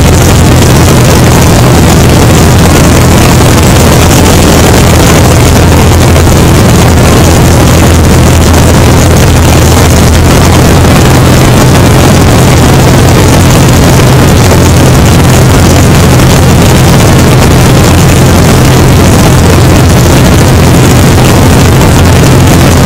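Great Lakes biplane's piston engine and propeller running steadily in cruise flight: a loud, unchanging drone with rushing airflow over the microphone.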